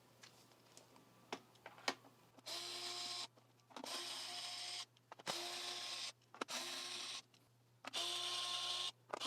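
Electric screwdriver backing out the casing screws of a handheld dust-mite vacuum, running in about five short bursts of roughly a second each, after a few faint clicks.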